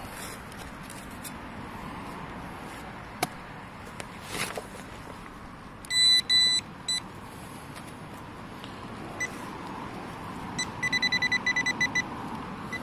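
Handheld metal-detecting pinpointer beeping as its probe is worked through a freshly dug hole. About six seconds in it gives two long high beeps and a short one, signalling metal in the soil. Near the end it sounds a fast run of short beeps as the tip closes on the target.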